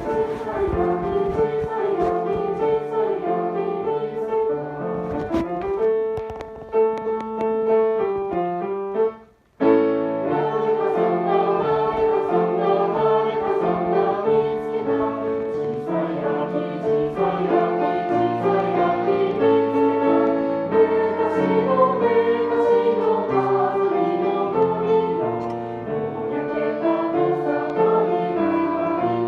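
Music with a choir singing over piano. It breaks off for a moment about a third of the way through, then carries on.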